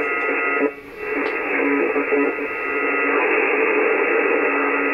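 Malahit DSP SDR receiver playing medium-wave AM static on 828 kHz, with a weak daytime station barely above the noise and noise reduction off. The hiss is cut off in the treble by the receiver's filter and carries faint steady whistles. It drops out briefly about a second in while the set is being tuned, then holds steady.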